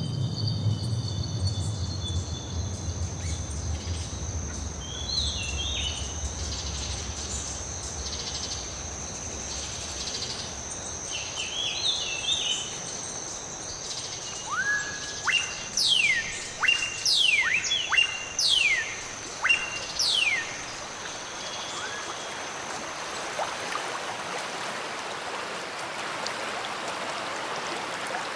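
Tropical forest and river ambience: a steady high whine runs until about three quarters of the way through, with bird chirps, a run of about ten loud falling whistled bird calls a little past halfway, and rushing river water growing louder near the end. A low rumble fades out over the first third.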